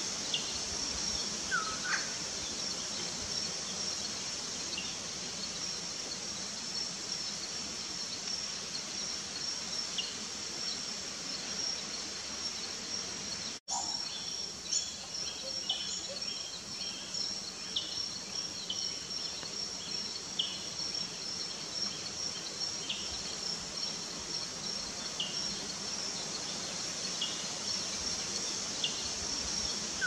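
Rainforest ambience: a steady high-pitched insect drone with frequent short bird chirps, and a louder rising bird call about two seconds in. The sound cuts out for an instant about halfway through.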